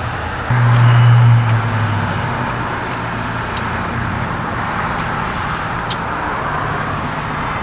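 1962 Cadillac's 390 V8 catching and starting with its new fuel pump: it comes in suddenly about half a second in, loudest for about a second, then settles into a steady run. Road traffic runs underneath.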